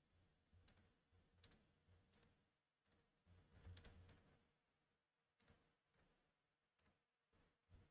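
Faint computer mouse clicks, a handful of single clicks spread irregularly.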